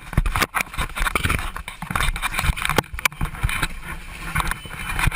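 Irregular knocking, clattering and scraping with scattered muffled voices inside the cabin of a plane that has just ditched in the ocean, as passengers scramble for life jackets and exits.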